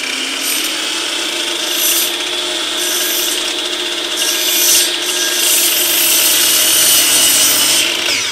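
Electric sliding compound miter saw running at full speed, its blade cutting a 22.5° bevel through a 2x6 board, with a rasping surge each time the blade bites the wood. Near the end the trigger is released and the motor's whine begins to fall as the blade winds down.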